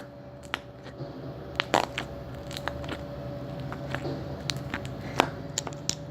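Crunchy slime being squeezed and handled, giving irregular crackling clicks and pops, over a faint steady hum.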